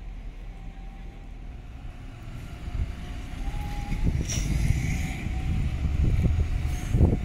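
A VDL Ambassador city bus's diesel engine pulling away and passing close by, growing louder from about three seconds in. A brief hiss comes about four seconds in.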